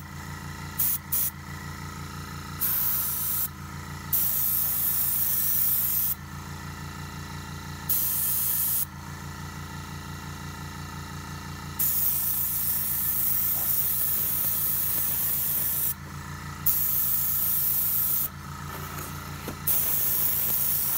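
Badger airbrush spraying in about six bursts of hiss as the trigger is pressed and released, most under two seconds and one about four seconds long, over a steady low hum.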